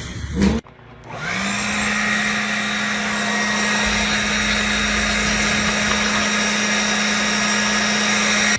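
A small electric motor running steadily with an even whine. It spins up about a second in and cuts off abruptly.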